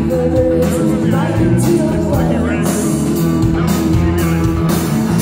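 Live rock band playing loud, with distorted electric guitars, bass, drums with cymbal crashes, and a singing voice, heard from the audience floor.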